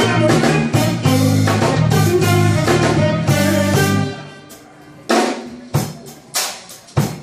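Live soul band playing: electric guitar, bass and drum kit in a full, sustained passage that dies away about four seconds in. After that come separate sharp drum hits, roughly two a second.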